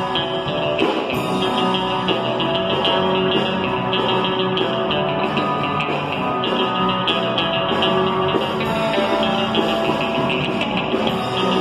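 Surf rock played live and loud on two electric guitars and an electric bass, a continuous stretch of the song.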